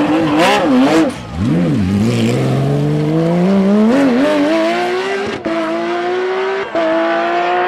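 Porsche 911 GT3 rally car's flat-six blipping the throttle through a tight turn, then accelerating hard away with a steadily rising pitch, cut by two quick upshifts.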